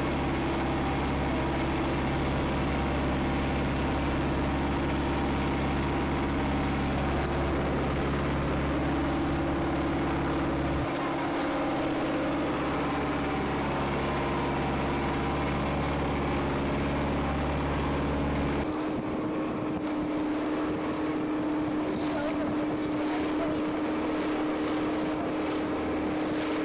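Fishing boat's engine running steadily under way, a constant drone with wind and water hiss over it. The deep part of the drone drops out abruptly twice, leaving a lighter steady hum with gusty hiss near the end.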